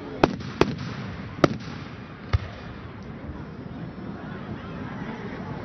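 Aerial firework shells bursting overhead: four sharp bangs within the first two and a half seconds, then another right at the end.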